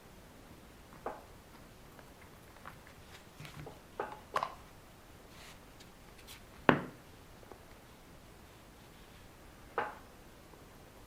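A few sharp, scattered clicks and knocks of small parts being handled on a work surface, the loudest about two-thirds of the way through.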